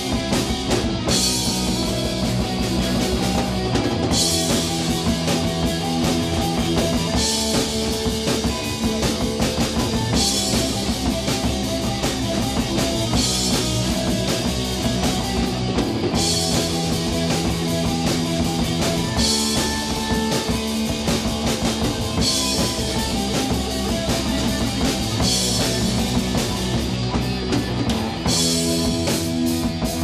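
Live rock band playing: electric guitars over a drum kit with bass drum and cymbals. The chords change every few seconds and the cymbals come in and drop out in alternating sections.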